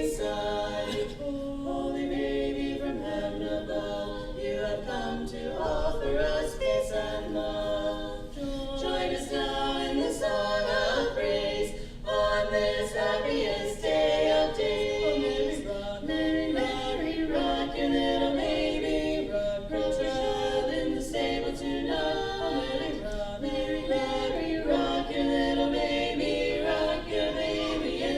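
An a cappella vocal group singing in close harmony, several voices holding and moving between chords with no instruments.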